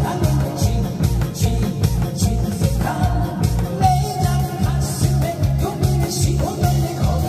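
Upbeat music with a steady, heavy beat, about two beats a second, and a melody line over it.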